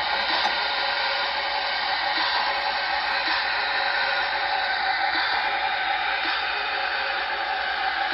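Steady steam hiss from the Proto-Sound 3 sound system of an O-gauge model steam locomotive standing still, with no chuffing.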